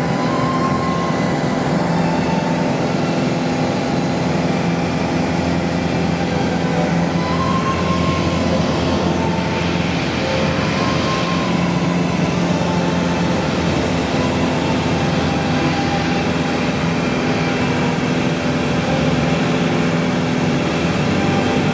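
Light aircraft's piston engine and propeller running steadily at high power through takeoff and climb-out, heard from inside the cabin.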